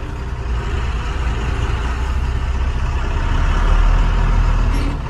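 Heavy truck's diesel engine and road noise heard from inside the cab while driving: a steady low rumble that grows slightly louder about four seconds in.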